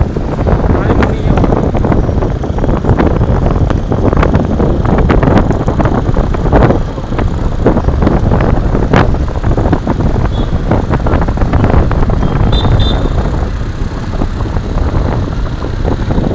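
Wind buffeting the microphone while moving along a road, over the running of motor vehicles in traffic.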